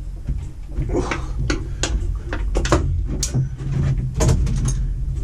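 Irregular clicks and knocks, as of tools and metal parts being handled on a mower, over a steady low rumble.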